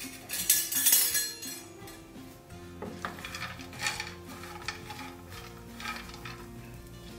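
Chopped nuts and dried fruit being stirred with a silicone spatula in a non-stick frying pan, a dry rattling scrape with each stroke, with a louder rustling burst about a second in. Soft background music plays underneath.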